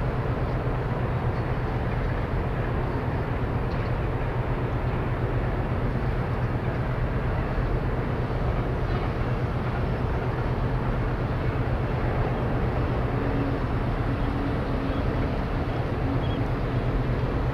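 Steady low drone of ships' diesel engines carrying across the harbour water, a constant hum under an even rumble.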